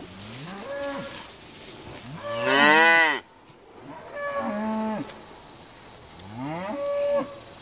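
Cattle mooing close by: four calls of about a second each, one after another, each rising in pitch and then held. The second, about two seconds in, is the loudest.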